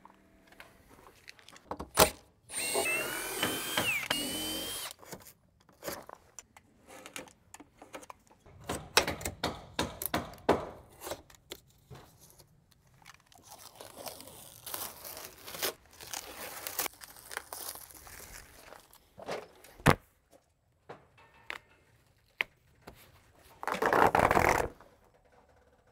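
Door-installation work sounds. About two and a half seconds in, a power drill runs for a couple of seconds with a whine that rises in pitch, followed by scattered clicks, knocks and rustling. Near the end comes a loud tearing rasp as flashing tape is pulled off its roll along the door jamb.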